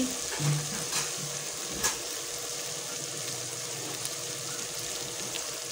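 Onion, tomato and garlic-ginger-chilli masala frying in oil in a metal cooking pot: a steady sizzle, with a couple of faint clicks about one and two seconds in.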